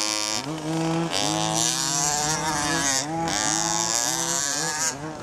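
HPI Baja 1/5-scale RC cars' 26cc two-stroke petrol engines running and revving, the pitch rising and falling with the throttle, with several quick throttle blips near the end.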